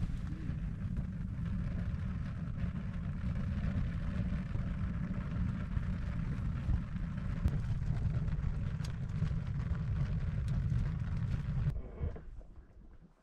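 Lighter-fluid-soaked charcoal briquettes burning hard in an outdoor oven's firebox: a steady low rumble of flames with a few faint crackles. It dies away near the end.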